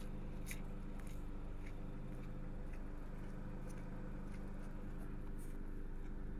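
Car engine idling steadily, with scattered light clicks and ticks over it.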